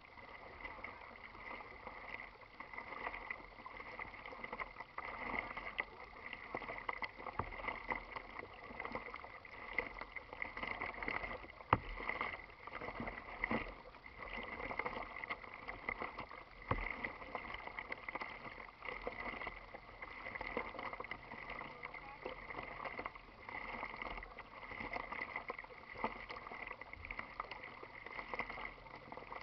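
Water lapping and splashing against a plastic kayak's hull as it moves across choppy water, rising and falling unevenly. A couple of sharp knocks come through, the loudest about twelve seconds in.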